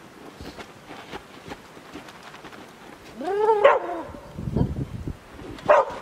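A dog gives one drawn-out whining call about three seconds in, rising and then falling in pitch, and a short yelp near the end, over crunching in the snow.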